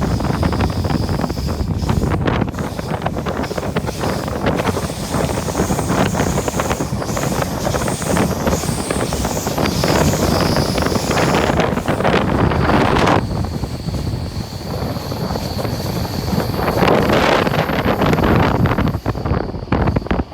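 Rumble of a moving train with wind buffeting the microphone, along with a faint high whine that comes and goes.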